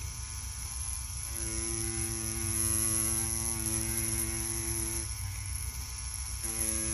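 Tattoo pen running, its needle working on synthetic practice skin with no ink: a steady electric buzz, with a higher whining tone that comes in about a second in and drops away about five seconds in.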